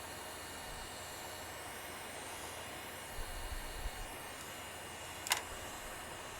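Hot air rework station blowing a steady hiss onto a PS4 motherboard while the southbridge chip reflows into place. A faint click comes about five seconds in.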